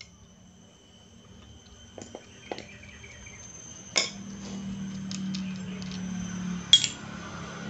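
Metal parts of a Honda Supra Fit engine's clutch assembly clinking as they are handled, a few sharp clinks, the loudest near the end. A low hum comes in about halfway through.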